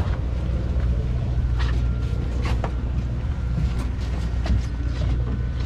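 Steady low drone of a long-range sportfishing boat's machinery, with scattered sharp clicks and knocks.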